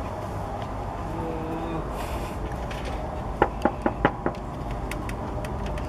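Knuckles knocking on an office door, about five quick raps a little over halfway in, over a steady low room hum.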